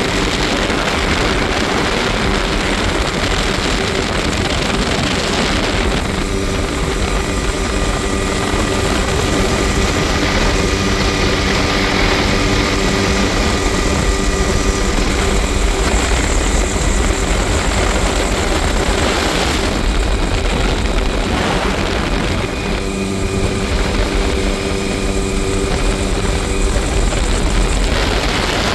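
Helicopter in flight with its doors off: steady, loud rotor and turbine noise over a constant rush of wind through the open cabin.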